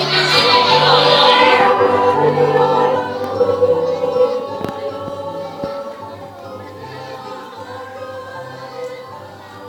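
Church choir singing a hymn over a low stepping bass line, loud at first and then growing gradually softer.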